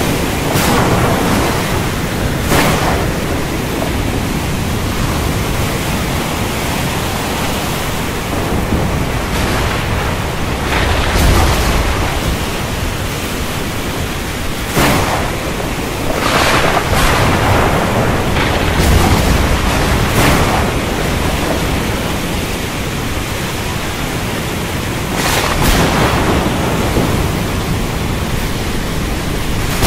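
Thunderstorm: a steady rushing storm noise with sharp thunder cracks every few seconds, about a dozen in all, some rolling off into low rumbles.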